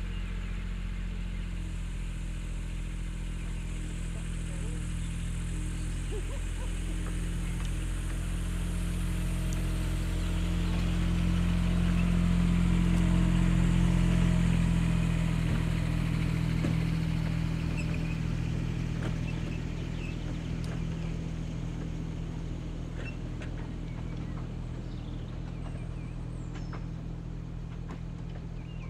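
Small diesel locomotive of a miniature railway pulling away and running past with a short goods train. Its engine note stays steady while it grows louder to a peak about halfway through, then fades as it moves off, with light clicking from the wheels on the track.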